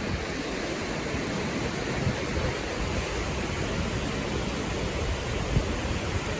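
Wind rushing over the microphone: a steady hiss with irregular low rumbling gusts.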